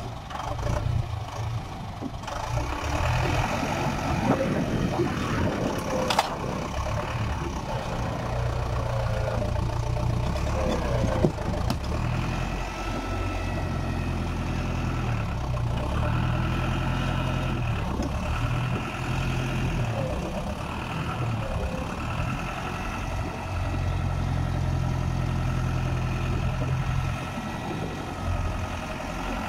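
Deutz-Fahr tractor's diesel engine running under load as the tractor, bogged in mud with a disc plough behind, tries to drive out; the engine note swells and eases off in stretches, with a couple of sharp knocks.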